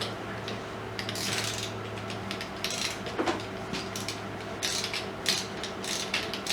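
Ratchet wrench clicking in a series of short strokes as the clutch spring bolts are tightened down on a Kawasaki ZX14's clutch pressure plate.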